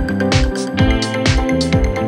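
Electronic background music with a steady, regular drum beat of about two beats a second.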